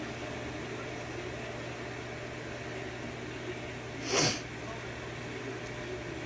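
Steady low room hum, with one short breathy puff of noise about four seconds in.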